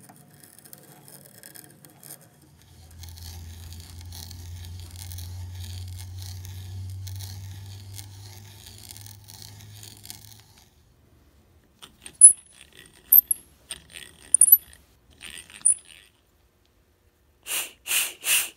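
Spiral auger bit, turned by hand, boring into the end grain of a short stick section, cutting with a steady crackling scrape over a low hum for about seven seconds. Afterwards a run of sharp clicks and taps, and three short loud rushing sounds near the end.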